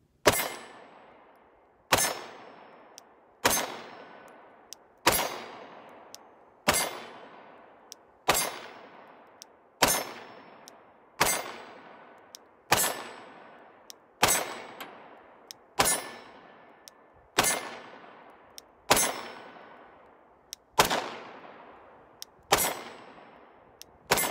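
A Glock 19 Gen 4 9mm pistol fires about sixteen shots at a slow, even pace, roughly one every one and a half seconds. Each report trails off in a long echo.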